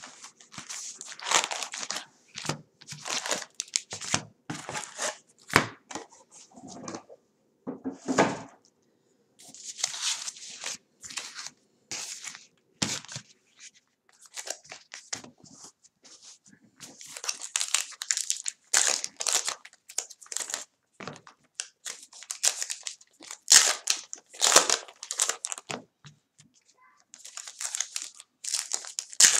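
Foil wrappers of 2018 Topps Gypsy Queen baseball card packs crinkling and tearing as the packs are handled by hand, in short irregular rustles with brief pauses.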